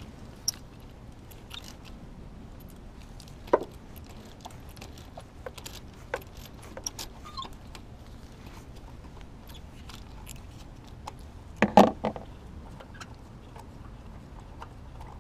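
Hand tools clicking and clinking at irregular intervals: a ratchet, extension and spark plug socket working in the spark plug wells as the plugs are loosened and pulled. There is a sharp clink about three and a half seconds in and a louder short clatter of metal about twelve seconds in.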